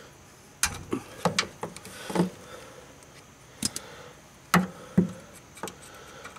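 Socket on a long extension clicking and clunking against a bolt in a Polaris RZR's underbody skid plate as it is turned by hand: about ten sharp, irregular metal clicks and knocks.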